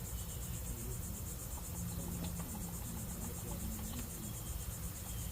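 Crickets chirping steadily in a fast, even pulse, over a low background hum.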